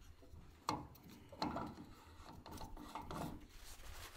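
Faint handling sounds at a truck's fuel filler: two sharp clicks about a second apart, then scattered rubbing and scraping as spilled fuel is wiped away with a paper towel.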